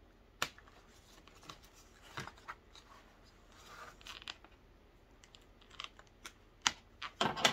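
Scissors snipping the ties that hold doll clothes in their packaging: a handful of sharp snips and clicks with some rustling of plastic and cardboard, the loudest snips coming as a quick cluster near the end.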